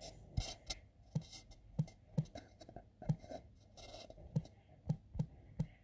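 Handling noise: a run of light knocks, about two a second, mixed with a few short scraping rustles.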